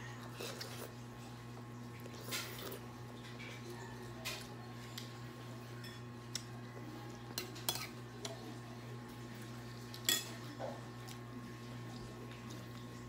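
Metal spoons clinking against bowls while eating: a scatter of sharp clinks a second or more apart, over a steady low hum.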